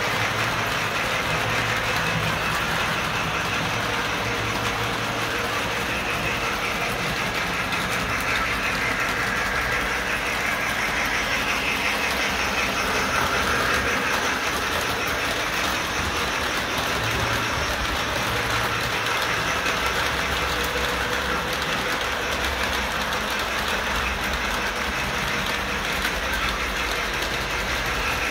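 Model trains running on a home layout's track: a steady whir of the locomotive motor and the rattle of wheels over the rails, unchanging throughout.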